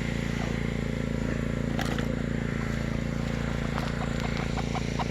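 Portable generator running steadily in the background, a constant engine hum, with scattered light ticks and clicks over it.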